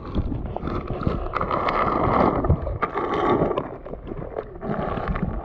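Water sloshing and gurgling close to the microphone, with irregular small splashes and knocks.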